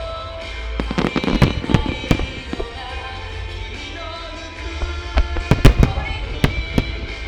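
Aerial fireworks shells bursting in two rapid clusters of sharp bangs, one about a second in and a louder one around five to six seconds in, over music with held tones.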